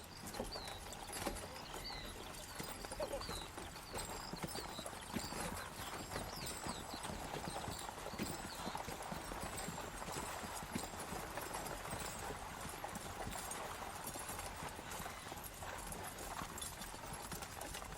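Horse hooves clip-clopping steadily, over a background murmur of voices.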